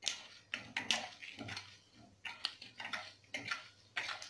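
Irregular clicks, taps and scrapes of a slotted metal spatula stirring mustard seeds and urad dal frying in oil in an unglazed clay pot.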